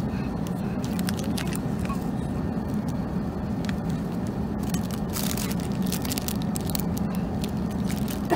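Steady low drone of an Airbus A380 cabin in flight, with intermittent crackling of plastic-wrapped meal items being handled, busiest about five to seven seconds in.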